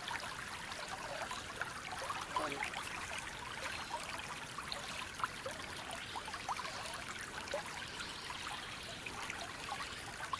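Creek water flowing and trickling steadily, with small scattered burbles.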